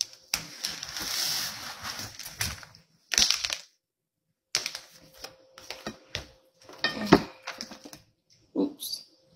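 Kitchen handling noises: a rustling hiss, then a string of clicks and knocks as a fork tosses lettuce salad in a plastic bowl.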